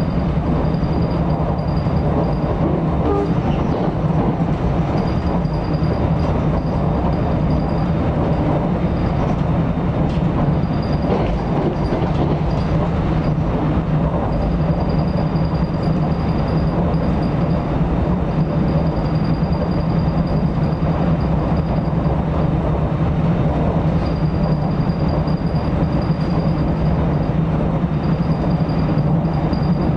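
Inside a moving NJ Transit commuter train car at speed: a steady rumble of wheels on rail with a low hum. A faint high whine comes and goes.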